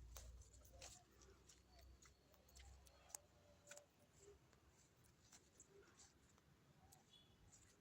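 Near silence with faint, scattered clicks and ticks and a low rumble in the first three seconds; no horn sounds.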